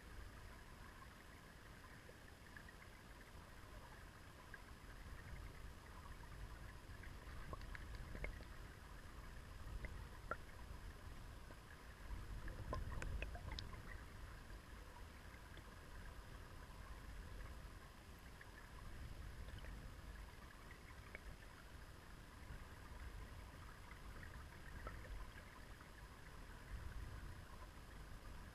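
Shallow river current heard underwater: a faint, steady low rumble with scattered small ticks and clicks, swelling a little about halfway through.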